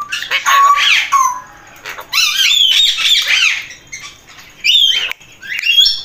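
Pet parakeets squawking in harsh, gliding calls. One bout comes at the start, a longer run about two seconds in, and two short calls near the end.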